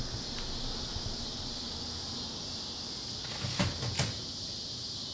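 A few sharp typewriter key strikes, three or four close together about three and a half seconds in, with a single click at the very start, over a steady high hiss.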